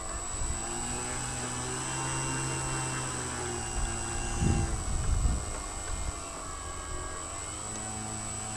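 Electric brushless motor and propeller of a Sig Hog Bipe RC biplane running at low throttle while it taxis over grass, heard from a camera on the plane. The pitch wavers slightly up and down with the throttle, and a brief burst of low rumbling comes about halfway through.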